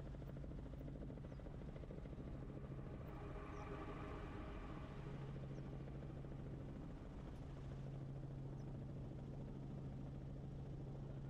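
Helicopter in flight: a steady engine hum with the rapid, even chop of the rotor blades.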